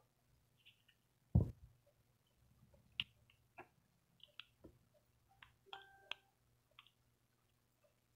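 Wireless karaoke microphone being handled: one loud bump about a second and a half in, then a run of small sharp clicks as its buttons are pressed, with a brief pitched tone near six seconds, over a faint low hum.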